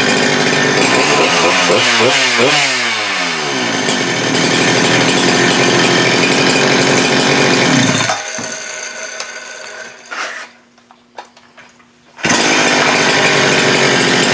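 Holzfforma G395 two-stroke chainsaw engine running hard, its pitch swinging up and down about two seconds in. It falls away about eight seconds in and comes back suddenly at full speed near the end. The saw is running on a freshly fitted piston with its low-speed mixture leaned out.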